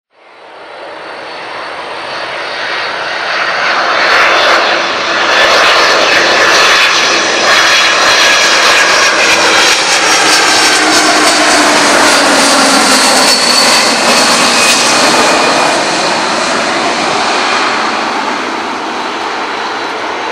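Airbus A300-600R airliner's Pratt & Whitney PW4158 turbofans on landing approach with gear down, growing louder over the first few seconds as it comes in low overhead. About two-thirds of the way through, the engine whine drops in pitch as the aircraft passes and the sound begins to fade as it moves away.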